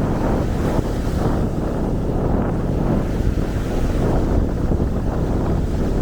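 Wind gusting on the microphone with a low rumble, over the wash of small waves breaking on a sandy beach.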